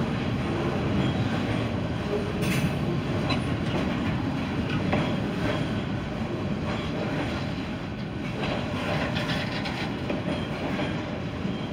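Freight cars of a Wisconsin & Southern train rolling past below: a continuous rumble with repeated clicks from the wheels on the rails.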